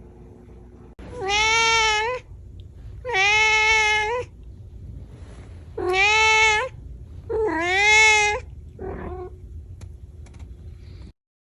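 Domestic cat meowing: four long, drawn-out meows about a second each, dipping in pitch in the middle, followed by a fainter short call.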